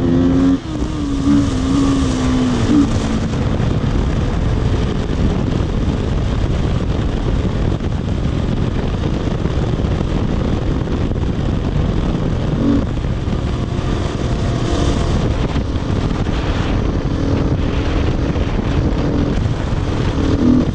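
Beta RR 500 dirt bike's single-cylinder four-stroke engine running at a steady road cruise, buried under heavy wind noise on the microphone. The engine note drops about half a second in, then holds steady.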